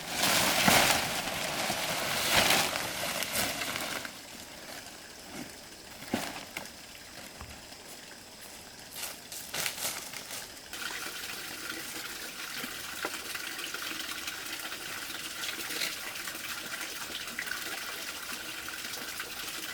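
Rustling and knocking for the first few seconds, then, from about halfway through, water running in a steady stream.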